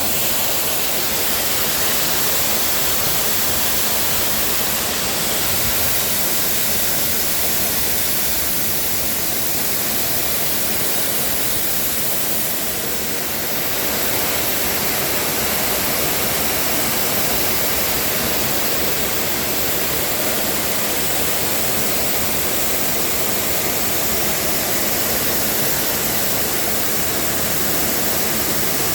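Kärcher HD 14/13 Cage Food high-pressure washer spraying through its surface-cleaning bar onto a conveyor belt: a steady, loud hiss of water jets with a faint low hum underneath. The spray dips slightly about halfway through.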